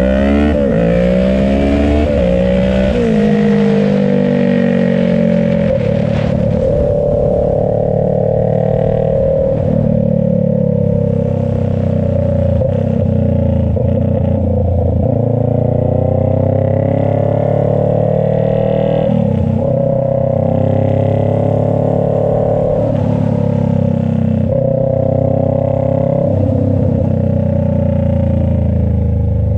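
Kawasaki Ninja 650's parallel-twin engine running loud through a short straight-pipe exhaust with no muffler. The revs climb in several quick steps over the first few seconds, then hold with slow rises and falls.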